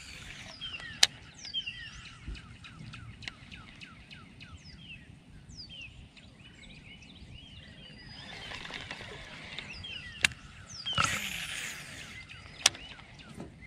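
Birds chirping, many short quick calls over a quiet outdoor background, with a few sharp clicks and two brief rushes of noise about eight and eleven seconds in.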